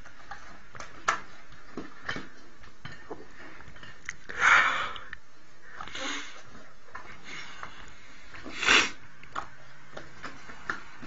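A dog eating food held up to its mouth by hand: small wet clicks of chewing and licking, with two louder breathy sniffs or snorts about four seconds apart.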